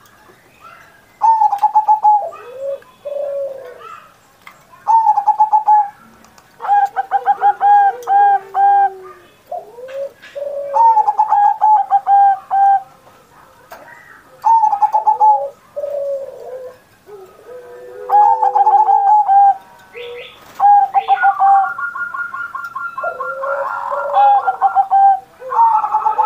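Zebra dove (perkutut) singing its rhythmic cooing song, phrase after phrase with short pauses between; each phrase is a run of quick stuttering notes over a lower, falling coo. Near the end a higher, rapid trill overlaps the coos.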